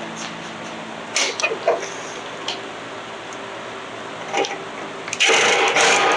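Hand tools and metal parts being worked during reassembly of a small generator engine: scattered clinks and knocks, then a loud run of rapid clicking near the end.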